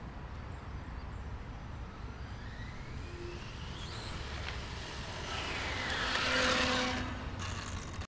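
Traxxas Funny Car RC drag car running on pavement. The whine of its four-pole brushless motor rises steeply as it accelerates, then a louder rush of motor and tyres swells and peaks about six and a half seconds in, over a steady low rumble.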